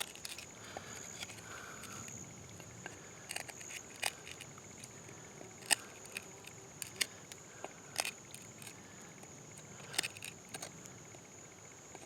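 Scattered sharp clicks and taps from handling the wooden hand-drill set, a yucca drill and trumpet-vine fireboard, over a steady high insect trill.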